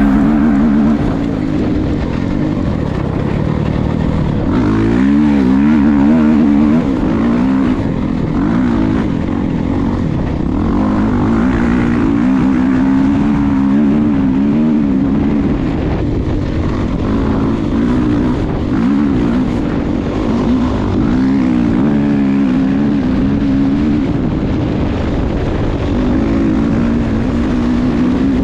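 Dirt bike engine, heard from a camera mounted on the bike while it is ridden along a dirt track, its pitch rising and falling over and over with the throttle and gear changes.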